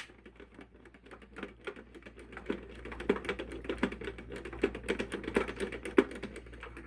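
Rapid, irregular small clicks and taps of a screwdriver working a screw out of a plastic model box car body, the clicks coming thicker and louder about halfway through.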